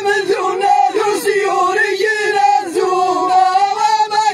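A chorus of men singing an Amazigh folk chant in unison, holding long notes that bend slightly in pitch.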